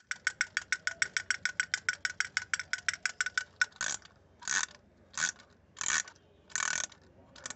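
Wind-up toy drummer girl beating her plastic toy drum with her sticks in a fast, even beat, about eight taps a second. About four seconds in the tapping stops and the toy's wind-up key is turned in five short ratcheting bursts, and the tapping starts again at the very end.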